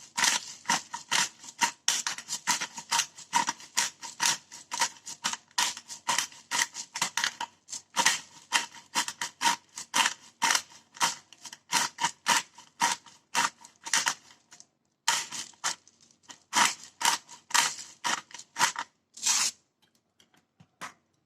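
Hand-twisted pepper mill grinding black pepper: rapid, even crunching strokes, about three a second, with a short pause partway through, stopping shortly before the end.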